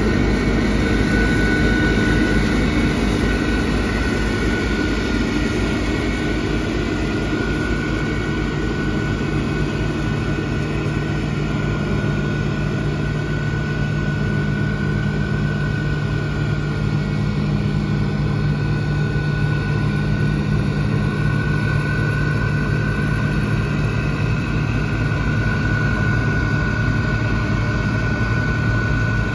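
Bizon Z056 combine harvester's SW-400 six-cylinder diesel engine running steadily, with a thin high whine over its low drone, as the combine moves off across the field.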